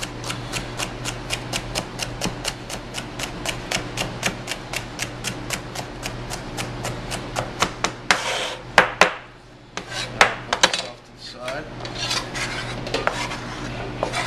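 Chef's knife dicing celery on a plastic cutting board: a steady, rapid run of chops, between four and five a second. About eight seconds in the blade scrapes across the board, followed by slower, irregular chops and scrapes.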